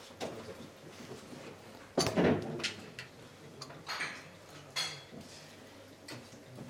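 Scattered light clinks and clicks of crockery and cutlery in a small room, with a louder clatter about two seconds in.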